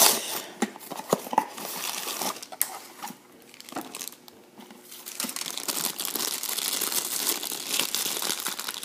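Cardboard blind box being torn open, with sharp tearing and clicking. After a short lull about three seconds in, the shiny foil bag from inside the box crinkles continuously as it is handled.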